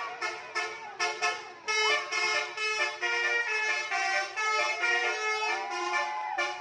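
Bus 'telolet' horn: a multi-tone musical air horn sounding a quick, shifting melody, with several notes at once that change every fraction of a second.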